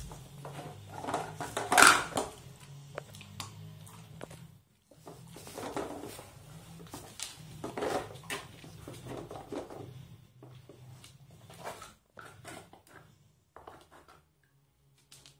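A dog nosing and pawing at a wooden dog puzzle board, knocking and lifting off its wooden lids: irregular wooden clacks and clatters, the loudest about two seconds in, with more around six, eight and twelve seconds.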